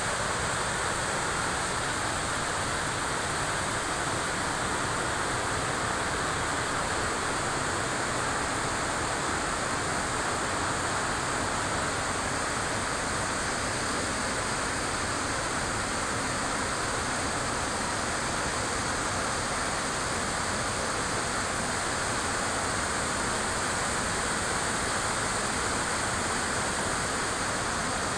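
River water flowing with a steady, unbroken rush.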